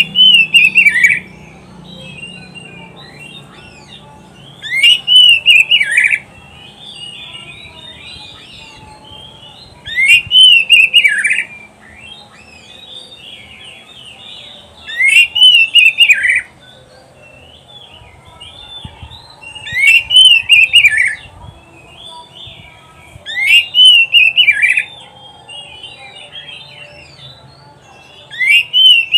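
Oriental magpie-robin (kacer) singing. A loud phrase of falling whistled notes with raspy high notes comes back about every five seconds, with softer twittering between the phrases.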